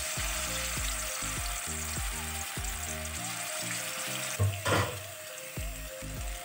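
Marinated chicken pieces sizzling in hot oil in a wok as they are laid in, a steady frying hiss over soft background music. A short louder burst comes about four and a half seconds in.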